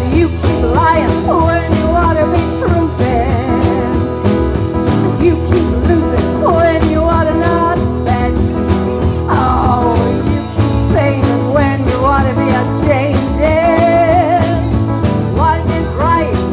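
A woman singing lead vocals into a microphone over a live band, drums keeping a steady beat under bass and guitar.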